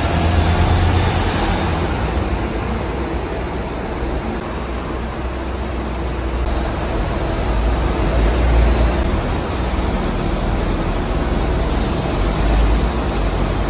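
City buses' diesel and gas engines running as they drive past, a deep engine rumble over road traffic noise, swelling near the end as a bus passes close.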